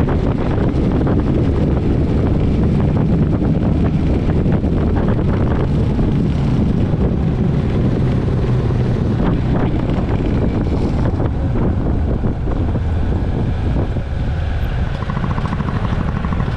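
Motorcycle being ridden on the road: a steady engine drone under wind rushing over the microphone.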